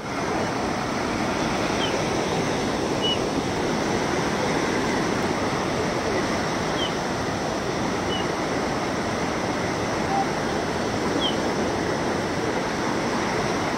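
Muddy floodwater rushing through a breached road embankment, a steady, unbroken torrent. A few short high chirps sound over it now and then.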